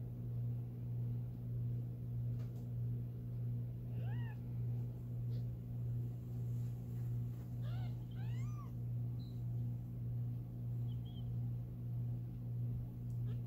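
Newborn kittens mewing: a few thin, high cries that rise and fall in pitch, one about four seconds in and a cluster of two or three about eight seconds in, with fainter squeaks later. Under them runs a steady low hum that swells and fades a little more than once a second.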